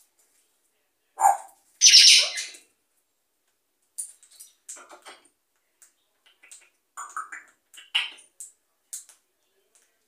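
African grey parrot giving two loud, harsh squawks about a second in, the second with a falling note. These are followed by a scatter of soft clicks and short chirps, the bird warming up its voice.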